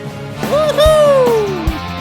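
Background rock music with electric guitar: one long note slides down in pitch for about a second, with low drum thumps under it.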